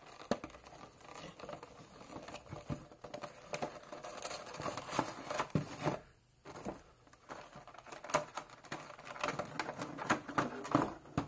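A small toy figure being taken out of its cardboard window box and clear plastic packaging: irregular crinkling and clicking of plastic and card, with a brief pause about six seconds in.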